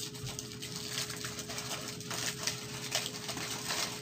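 Aluminium foil crinkling and crackling as a foil-wrapped taco is pulled open by hand, a rapid, irregular run of crackles.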